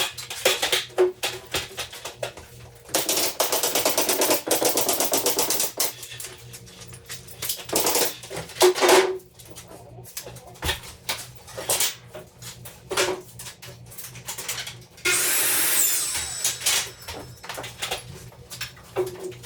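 Carpentry power tool running for about three seconds, then scattered knocks and clicks of wood being worked, with another short power-tool burst near the end.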